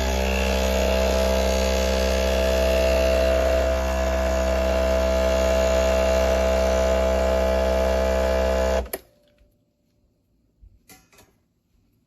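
Breville Barista Express espresso machine's vibratory pump buzzing steadily during a shot, then cutting off suddenly about nine seconds in. A few faint clicks follow.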